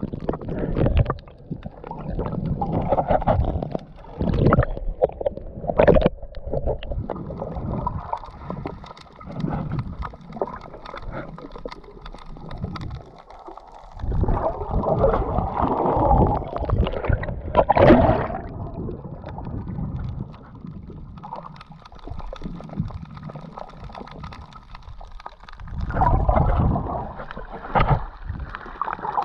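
Muffled moving water heard through an underwater camera, gurgling and sloshing in irregular swells.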